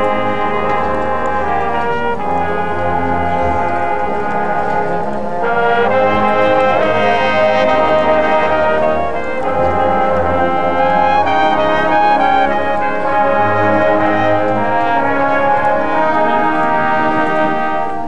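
High school marching band playing a brass-led passage of held chords over the low brass. It gets louder about five and a half seconds in.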